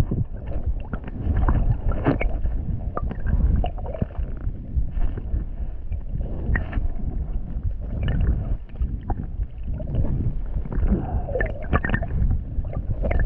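Muffled water rumble and sloshing picked up by a submerged camera as someone wades through shallow sea water over a sandy bottom, with scattered small clicks and knocks.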